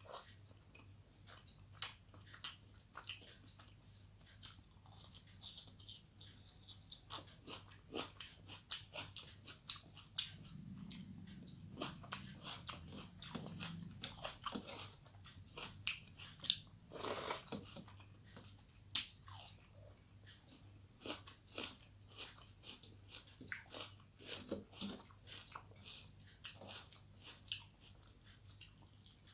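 Close-up eating sounds of a person eating rice by hand: chewing, with many short wet clicks and smacks of the mouth throughout, and soft squishing of fingers mixing rice on a metal plate.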